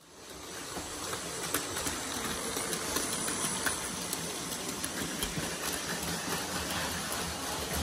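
Plarail Advance toy trains running on plastic track: small electric motors whirring steadily, with irregular light clicks from the wheels and track. The sound fades in over the first second.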